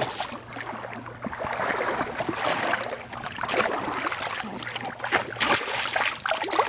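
A hooked salmon thrashing in shallow creek water: a run of irregular splashes and churning water.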